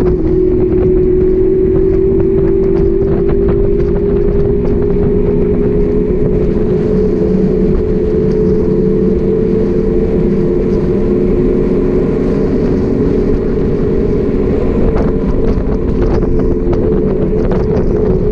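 Bicycle rolling along an asphalt road: a steady tyre hum that drifts slightly in pitch, over wind rumbling on the microphone.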